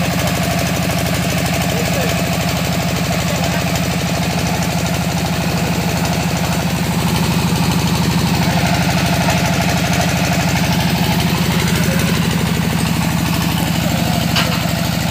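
Engine of an XY hydraulic core drilling rig running steadily, a low, evenly pulsing drone that swells slightly in the middle.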